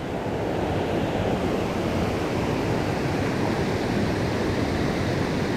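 Small rocky creek rushing over boulders and through a riffle: a steady rush of water.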